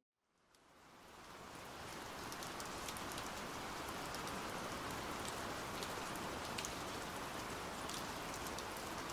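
Steady rain falling, with scattered individual drops ticking, fading in from silence over the first two seconds.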